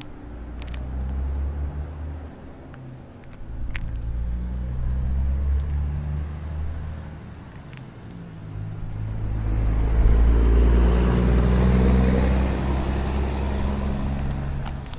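Road traffic: a car drives past over a low engine rumble, its engine and tyre noise swelling to a peak about ten seconds in and then fading.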